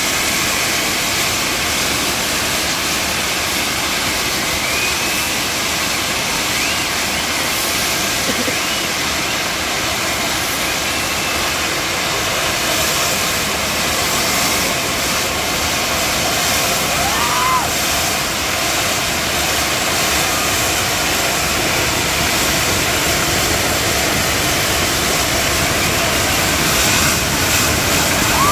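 Fountain fireworks on a tall kambam tower spraying sparks, making a loud, steady hissing rush much like a jet engine, with a few faint short whistles through it.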